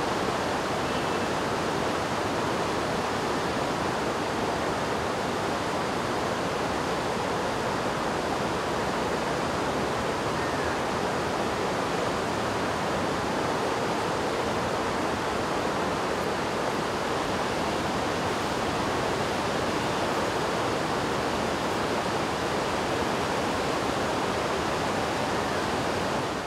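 Steady rushing of a swollen, silt-laden Himalayan river in flood.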